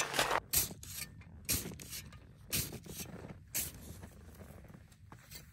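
A snow shovel scraping and tossing snow, then short crunches of dry, cold snow, about one a second.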